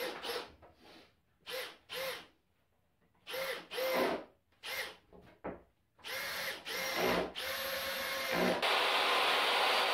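Makita cordless drill-driver running in short trigger bursts, whining briefly each time it drives a screw into an MDF cabinet panel, then in longer runs. A little before the end, a steady, louder machine noise starts and keeps going.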